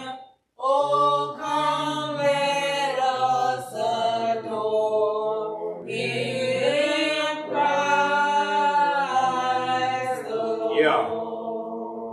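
Church choir singing a seasonal Christmas song in long held notes, with a short break about halfway through.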